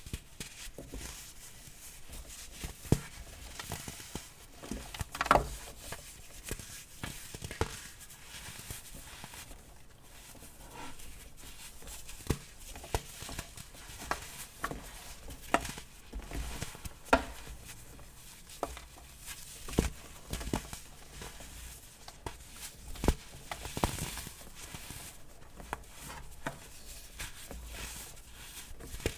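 Baking soda crumbles being crushed, with soft continuous crackling and irregular sharp crunches, a dozen or so standing out loud.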